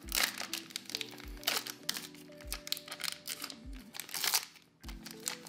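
Foil trading-card pack wrapper crinkling and tearing as it is opened by hand, over background music with a steady beat.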